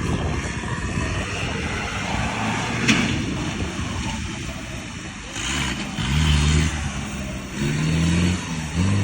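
Off-road race vehicle engines running with a steady rumble, with a sharp knock about 3 seconds in. Near the end an engine is revved and held at steady pitch in several short pushes.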